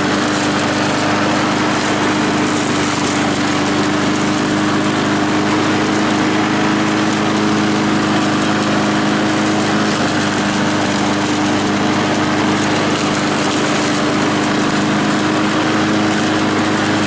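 Gasoline walk-behind lawn mower's small single-cylinder engine running steadily at an even speed, just after its repaired pull-start cable got it going.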